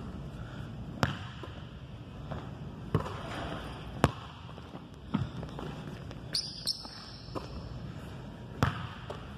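Basketball bouncing on a hardwood gym floor: about five separate, sharp bounces, each a second or more apart. A brief high squeak comes a little past the middle.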